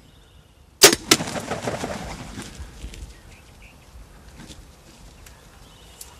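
A bow shot at a wild turkey gobbler: a sharp crack of the released string and arrow, a second smack about a third of a second later, then about two seconds of rapid rustling and wing-flapping as the hit bird thrashes, fading out.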